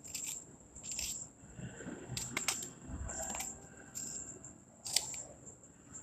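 Kitchen knife cutting peaches on a wooden cutting board: quiet, irregular knocks of the blade against the board, roughly one a second. A faint steady high-pitched whine sits underneath.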